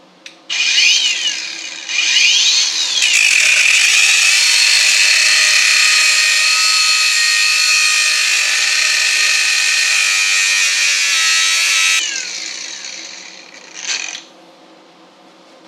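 An electric power tool cutting through steel threaded rod. The motor is triggered briefly twice, then runs through the cut with a steady high whine for about nine seconds and winds down. There is one more short burst near the end.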